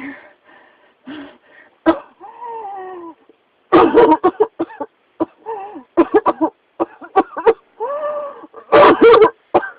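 A person in a coughing fit: clusters of short, harsh coughs, louder and denser from about four seconds in, broken by two long, strained, pitched breaths.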